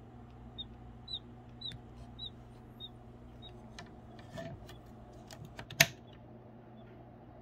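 Six short, high bird-like peeps, about two a second and fading, over a low steady hum. Then a quick run of sharp clicks, one of them loud, near the end.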